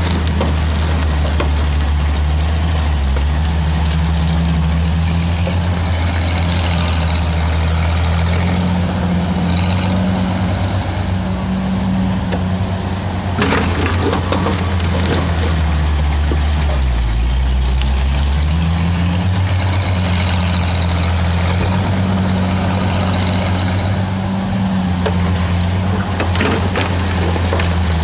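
Engine of a 1961 Bantam T-350 cable excavator running steadily through a digging cycle. Its pitch sags twice as the machine takes load, and a higher hiss comes and goes. There is one sharp clank about halfway through.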